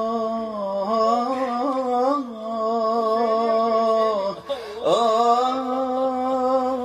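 Solo male voice singing a long, ornamented Arabic devotional vocal line on held vowels without words. The pitch wavers in small trills, dips and swoops back up about two-thirds of the way through, then settles on a steady held note.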